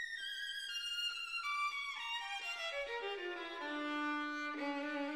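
Background music: a violin playing a run of notes that steps down from high to low over about four seconds, then settles on a held low note.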